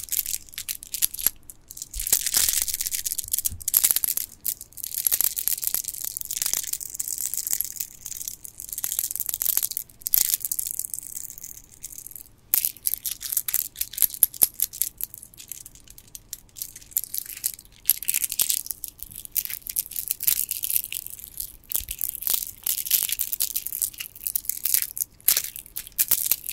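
Otter Spirit gemstone bead bracelets on elastic cord, handled and rolled between the fingers close to the microphone: the stone beads click and rattle against each other in dense, crisp runs with brief pauses.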